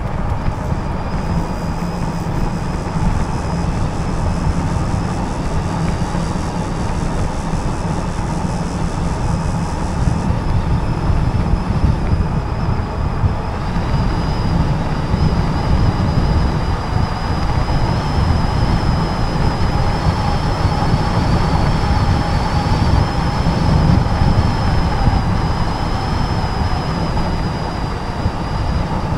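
Wind buffeting a bike-mounted camera microphone and tyres rolling on tarmac as an e-bike coasts fast downhill, with a faint steady high whine over the rumble.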